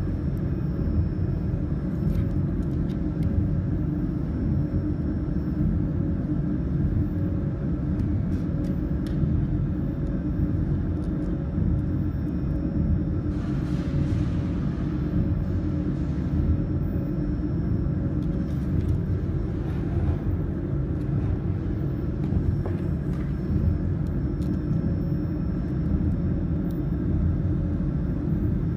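Steady low hum and rumble of running machinery, with a few faint clicks and a brief hiss about halfway through.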